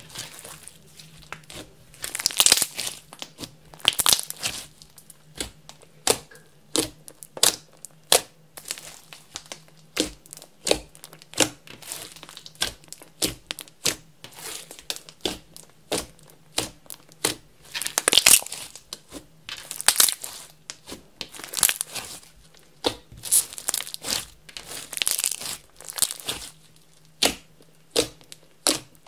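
Hands kneading, folding and stretching slime, with makeup and glitter being mixed into clear slime. It gives an irregular run of sharp clicks and pops, a few a second, with a longer crackling stretch every couple of seconds.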